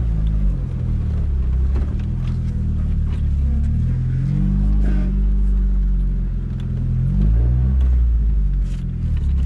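Jeep Wrangler TJ's engine running at low revs as it crawls over a rough forest dirt track, heard from inside the cabin. Its pitch rises and falls several times with the throttle, and a few short knocks come through over the bumps.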